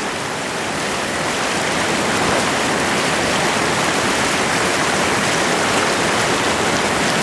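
Whitewater river rapids rushing: a steady, even rush of water that grows a little louder over the first couple of seconds.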